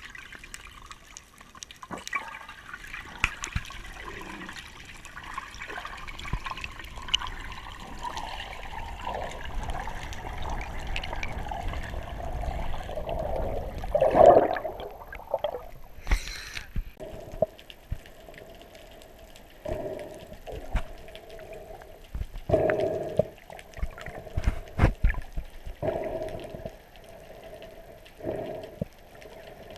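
Water heard from inside a GoPro's underwater housing during a freedive: a muffled wash with scattered clicks and knocks. About halfway through there is a loud swirl of bubbles, and after that come short bursts of water noise.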